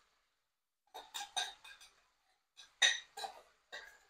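Steel container clinking and knocking against a steel pan as cooked rice is tipped and tapped out into the vegetables: a run of short sharp knocks about a second in, and more near the end.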